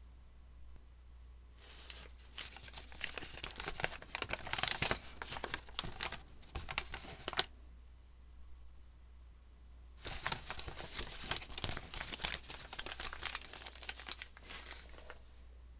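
Paper being folded and crinkled, in two bouts of dense crackly rustling several seconds long: the first starts about a second and a half in, and the second follows a quiet pause of about two seconds and tails off near the end.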